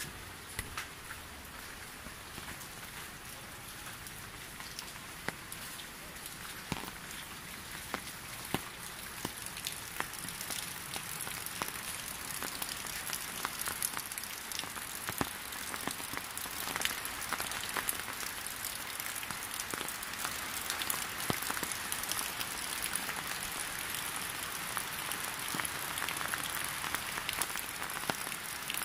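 Heavy rain falling steadily, with many individual drops ticking sharply close by; it grows gradually louder through the second half.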